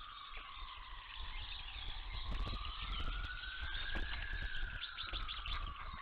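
A distant siren wailing, its single tone sliding slowly up and down over several seconds, over small birds chirping. From about two seconds in, a run of clicks and knocks comes in.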